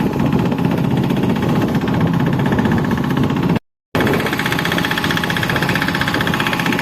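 An engine running steadily with a fast, even knocking beat. It cuts out completely for about a third of a second a little past halfway, then resumes.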